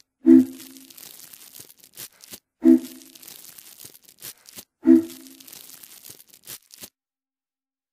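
Live acoustic band ending a song, heard through a crackling, overloaded camcorder microphone: three loud, short chords struck about two seconds apart. Near the end the sound cuts off suddenly.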